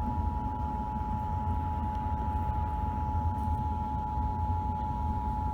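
Emergency Alert System attention signal: the steady two-tone alert played over a radio broadcast, marking the start of a national EAS test. A steady low rumble runs underneath.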